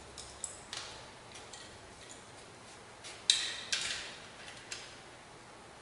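Metal hand tools clinking and clicking as they are handled and set against the steel welding cart: a handful of sharp separate clicks, the loudest about three seconds in, with a brief metallic ring.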